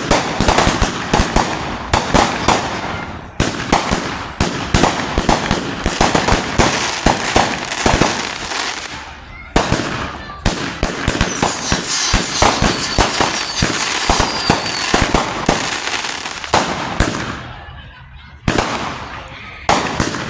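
Firecrackers or fireworks going off in a dense, rapid run of sharp bangs and crackling pops, which the uploader says sound like gunshots, with short lulls twice.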